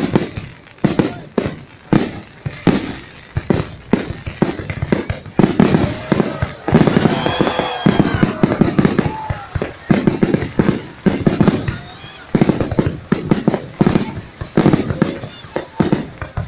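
Fireworks display: a rapid string of sharp bangs going off about two to three a second, denser in the middle.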